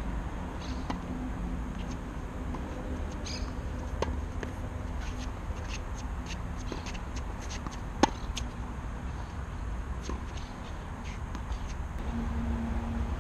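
A single sharp pop of a tennis racket striking the ball about eight seconds in, over a steady outdoor background hum, with a few lighter ticks and taps around it.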